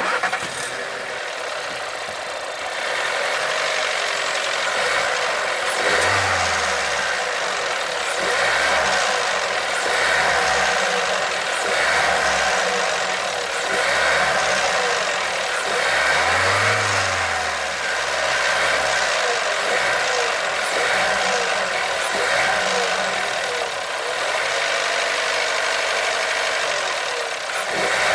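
Volkswagen-group 1.2 TSI turbocharged four-cylinder petrol engine revved up and let fall back about every two seconds, with a knock from the engine as the revs rise and drop.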